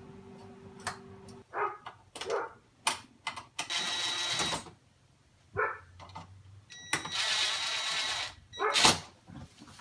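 Clicks, knocks and scraping of parts being handled and fitted back into a refrigerator, with two longer hissing scrapes. A steady hum stops suddenly early on.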